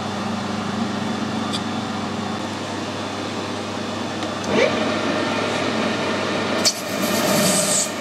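Metal lathe: a steady hum, then about halfway the motor starts with a short rising whine. Near the end a parting tool begins cutting into the spinning brass bar with a steady high scraping noise.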